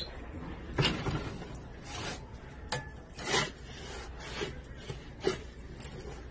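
Metal pizza peel scraping and sliding across a metal pizza-oven floor as it scoops up a pizza, in several short, irregular scrapes.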